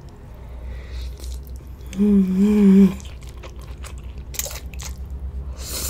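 Close-miked mouth sounds of eating a big mouthful of spaghetti in tomato sauce: wet chewing, smacking clicks and short slurps as the noodles are drawn in. About two seconds in there is a loud hum lasting about a second.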